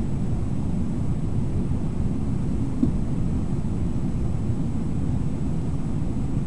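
Steady low rush of a shallow river running over rapids, heard as an even rumble, with one brief blip about three seconds in.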